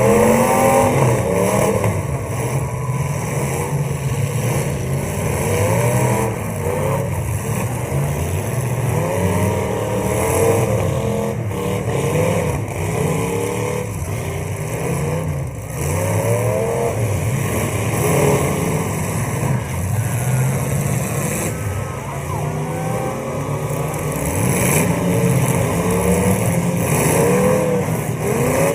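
Several full-size demolition derby cars' engines revving hard again and again, their pitches overlapping and swooping up and down as the cars accelerate and back up.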